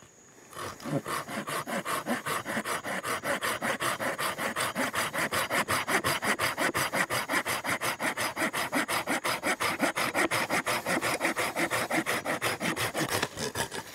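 Folding pruning saw cutting through a wooden pole with fast, even back-and-forth strokes that start about half a second in and stop just before the end.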